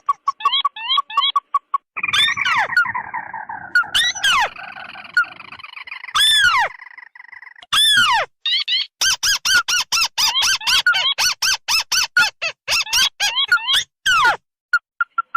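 Lure recording of crake calls, ruddy-breasted crake and white-browed crake mixed together: fast runs of short, sharp repeated notes, a falling chattering trill in the first half and several loud downward-sweeping calls. The calls start and stop abruptly, as in an edited, looped track.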